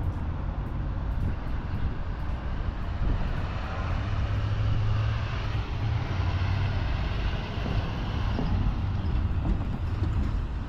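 Road traffic close by: a pickup truck and other vehicles pass, a steady rumble of engines and tyres that swells about halfway through.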